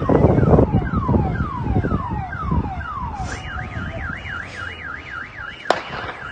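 Car alarm sounding: a run of repeated falling whoops, then from about three seconds in a fast up-and-down warble, over a low rumble. A single sharp click near the end.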